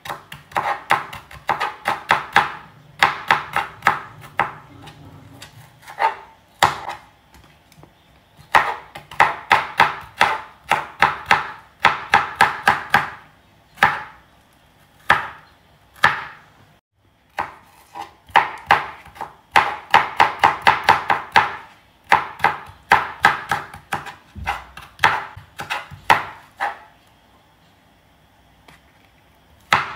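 A kitchen knife dicing bell peppers on a cutting board: quick runs of chops, several a second, broken by short pauses.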